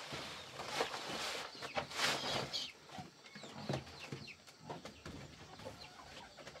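Farm animals calling in short, irregular bursts, with the rustle and creak of a woven bamboo basket being lifted and carried.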